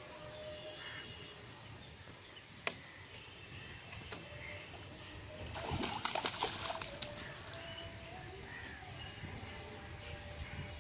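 A hooked tilapia thrashing at the pond's surface, splashing the water for about a second and a half around the middle. A single sharp click comes a few seconds before it.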